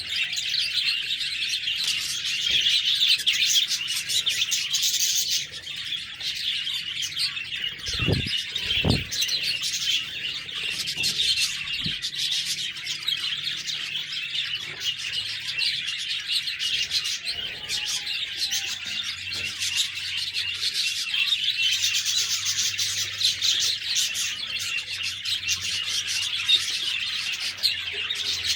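A flock of budgerigars (parakeets) chattering and warbling without pause, in a dense tangle of chirps. Two short, dull thumps come about eight and nine seconds in.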